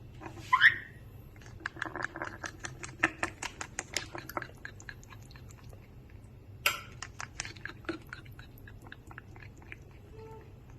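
Hungry baby parrot being hand-fed Cerelac: a short squeaky call about half a second in, then rapid wet clicking and smacking of its beak as it gulps the formula. The clicking thins out near the end.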